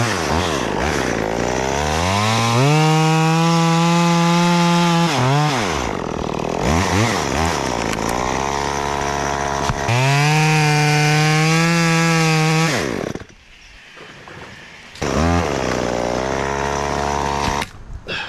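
Two-stroke chainsaw revved up to full throttle and held steady, dropping back, then revved and held a second time before falling off to a lower steady run that drops away near the end. The owner suspects a carburetor or clutch-plate problem with the saw, but is not sure which.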